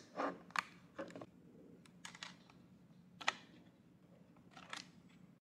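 Faint handling clicks and taps from the small plastic pocket radio being turned over in the hands, a few light knocks spread out, the sharpest about three seconds in.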